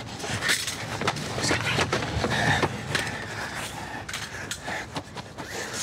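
Scuffling: clothes rustling and scraping against a car body, with many sharp clicks and small metallic clinks throughout.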